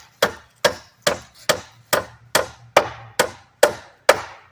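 Hammer driving a nail into wood: ten steady strikes at about two a second, stopping near the end.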